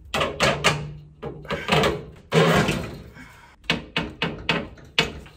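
Grow-light fixture knocking and clattering against the glass shelf and metal frame of an IKEA glass cabinet as it is worked into place. The sound is a series of about ten sharp knocks, with a longer scraping stretch a little past two seconds in.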